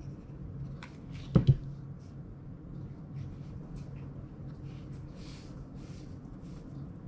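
Hands hot-gluing a wooden craft stick onto a wooden board: two quick sharp knocks close together about a second and a half in, then faint brushing and rubbing as fingers press the stick down onto the wood. A low steady hum runs underneath.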